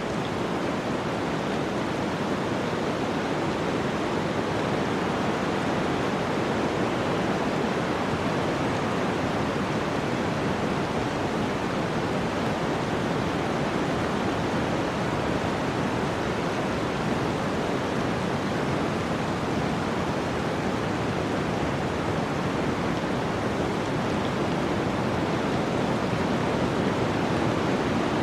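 Running water rushing steadily and evenly, without a break.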